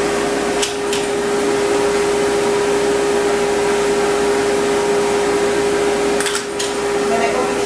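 Pet grooming stand dryer blowing steadily, with a constant hum over its rushing air, as it fluff-dries a dog's coat. A few short clicks come about a second in and again near the end.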